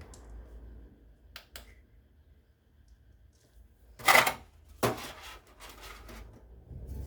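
Handling of a plastic speedcube timer and its packaging: a few light clicks, then two louder plastic clacks about four and five seconds in, with some rustling.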